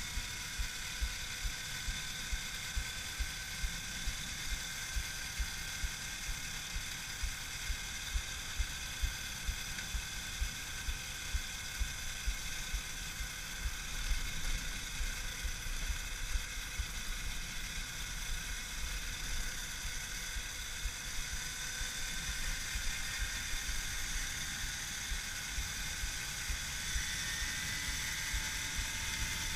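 Electric moped's brushless motor (an Axi 5345/14HD outrunner run by a Jeti ESC) whining steadily under way at speed, with several steady tones that rise slightly in pitch near the end. Beneath it, wind rumbles on the GoPro's microphone.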